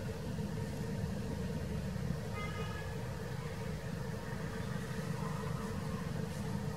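Steady low mechanical rumble with a constant hum, as from a running engine. About two and a half seconds in there is a brief high-pitched call.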